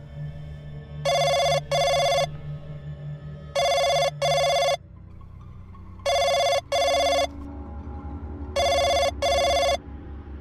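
Cordless home telephone ringing with an electronic double ring: four pairs of short rings, each pair about two and a half seconds after the last, stopping just before the handset is picked up.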